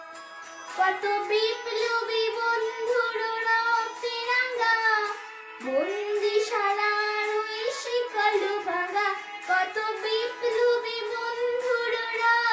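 A girl singing solo, a slow melody of long held notes that waver slightly in pitch, with a pause for breath at the start and another about six seconds in.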